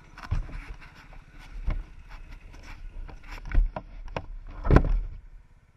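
Arctic Cat 1000 ATV engine running while it wades through a stream, with water splashing in several loud surges. The splashing dies away near the end, leaving the engine's low drone.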